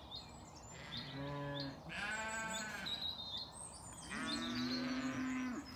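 Zwartbles sheep bleating: three separate calls, the last and longest starting about four seconds in.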